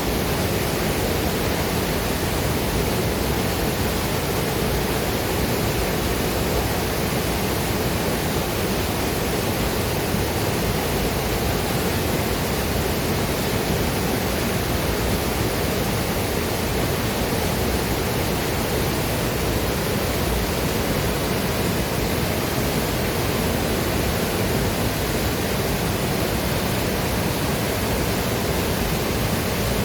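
Waterfall and river water rushing, a steady, dense roar of falling and flowing water with no changes.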